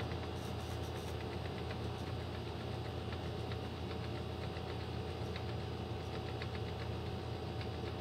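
Lakewood box fan running: a steady motor hum with the even rush of air from its blades.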